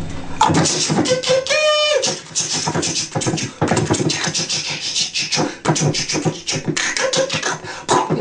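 A man beatboxing into a handheld microphone: a fast run of percussive mouth sounds, with one short sung note about one and a half seconds in.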